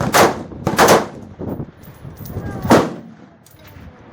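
Four gunshots at uneven intervals, each a sharp crack with a short ringing tail; the third is fainter.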